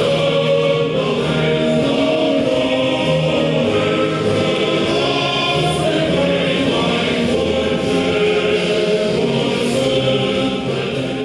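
A choir singing, held steady and fading out near the end.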